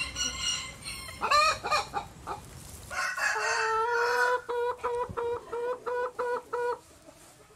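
Domestic chickens calling: harsh squawks in the first two seconds, then a long drawn-out call followed by a run of about eight short, even clucks, about three a second, that stop near the end.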